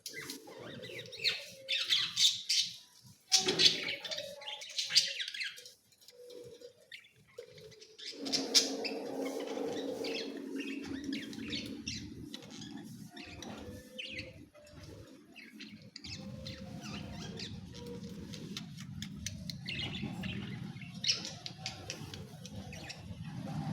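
Pet parrot calling with chirps and squawks, a cluster of loud calls in the first few seconds and scattered shorter ones later. A steady low hum runs under it from about eight seconds in.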